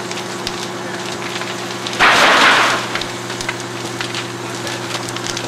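Burning wooden garage crackling and popping over a steady low hum. About two seconds in comes a loud rushing hiss lasting under a second.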